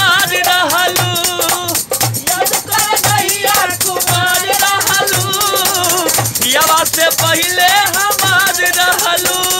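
Bhojpuri folk song music: a wavering sung or played melody over a steady low drum beat, with a jingling rattle throughout.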